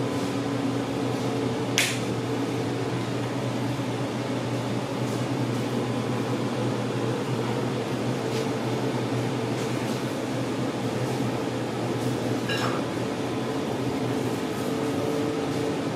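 Steady machine hum of restaurant equipment, a low drone with a few steady tones over it, broken by two short sharp clicks, one about two seconds in and one about twelve and a half seconds in.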